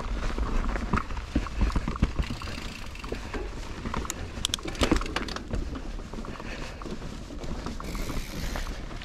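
Mountain bike rattling and knocking over rough ground, a quick run of sharp clicks and knocks with a louder knock about halfway through, over wind rumbling on the microphone.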